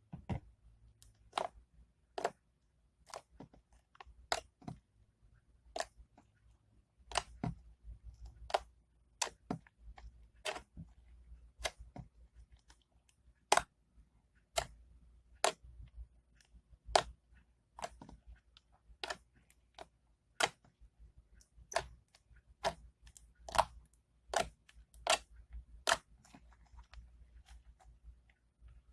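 Metallic clear-glue slime being squeezed and kneaded by hand, making sharp clicks and pops about once a second.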